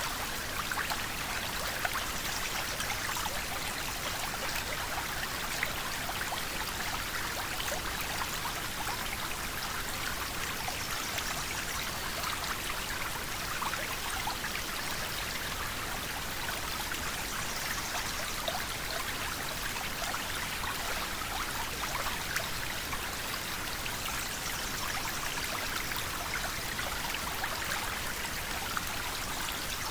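A river flowing steadily, a continuous rush of water with many small splashes and trickles.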